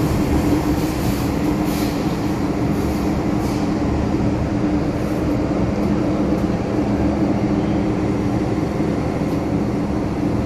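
MTR M-Train electric multiple unit running, heard from inside the passenger car: a steady rumble with a constant motor hum.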